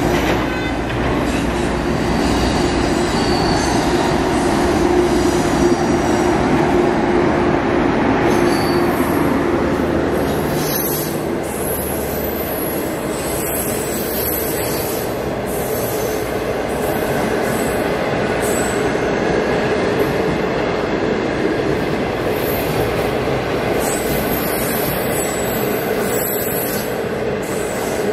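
An HXD3C electric locomotive and its train of passenger coaches rolling past steadily, the wheels running on the rails. A steady low tone sounds over the first ten seconds, and thin high wheel squeals come in from about eight seconds on.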